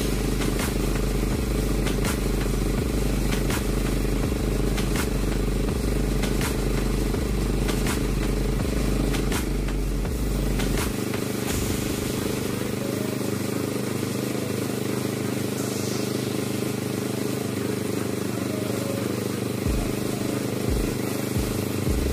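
An air compressor runs steadily while a paint spray gun hisses as it sprays motorcycle body panels. Through the first half there is a light tick about every second and a half.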